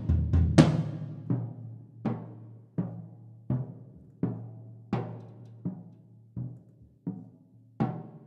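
Tom-toms of a Schagerl brass-shelled drum kit struck with soft felt mallets, giving deep, ringing, timpani-like strokes. The strokes come at an even pace of about one every 0.7 s and grow gradually softer, after a denser, louder flurry at the start.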